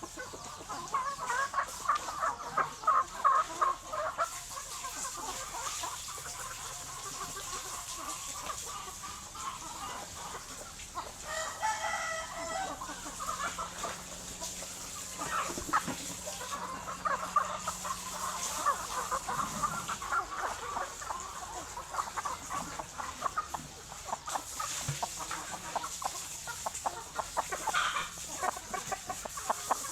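A flock of chickens clucking continuously, with a rooster crowing about twelve seconds in.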